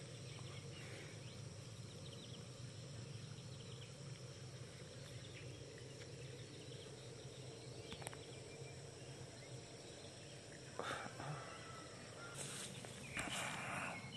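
Faint outdoor field ambience with a steady low hum and thin steady high tones. Near the end come a few short bursts of rustling as rice stalks brush past the phone.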